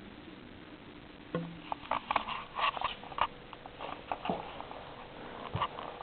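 Hamster chewing a bug: a run of quick, irregular crisp crunching clicks that starts about a second in.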